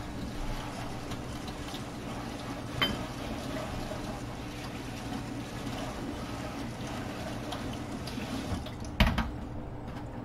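Steady sound of water in a kitchen, with a single click about three seconds in and a louder knock about nine seconds in.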